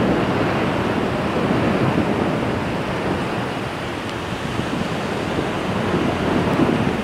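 Steady rushing noise of wind buffeting the microphone of a camera hung from a kite, mixed with surf breaking below.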